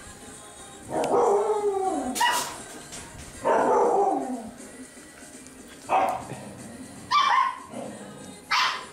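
Six-week-old puppies at play, yapping: two drawn-out calls that fall in pitch, then several short, sharp, high yips.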